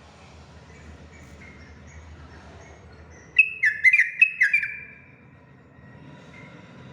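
Yellow-vented bulbul (trucukan) singing: one loud phrase of several quick, short, descending notes lasting about a second and a half, starting about three and a half seconds in. Faint chirps sound before and after it.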